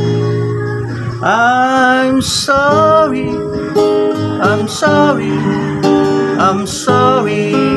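Acoustic guitar strummed, with a man's singing voice coming in about a second and a half in and carrying on in short held phrases.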